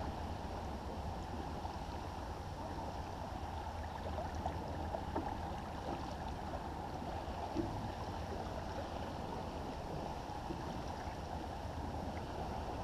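Water rushing and splashing steadily along the hull of a First 30 sailboat under way.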